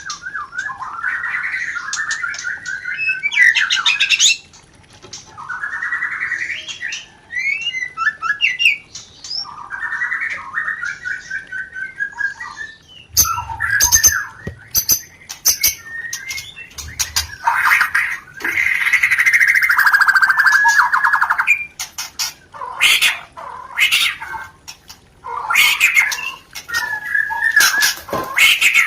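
White-rumped shama (murai batu) giving its mating song: repeated short phrases of fast rattling trills and harsh squawky notes, broken by brief pauses. It is the chattering 'rencetan' call of a bird in breeding condition.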